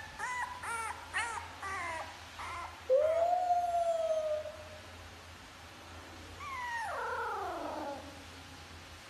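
French bulldog puppy vocalising: a run of short whimpering yelps, then, about three seconds in, a long howl that rises and holds. Near the end comes a long whine falling in pitch.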